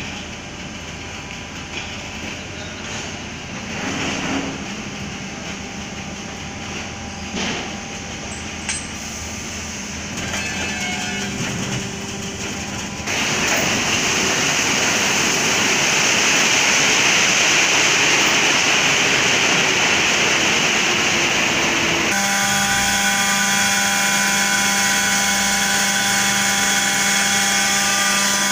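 Hydraulic truck tippler at work: a low machinery noise with a few knocks, then from about halfway a loud, steady rush as the tipped truck's load pours out into the pit. Near the end this changes to a steady hum with a whine from the tippler's hydraulic power pack running beside its control panel.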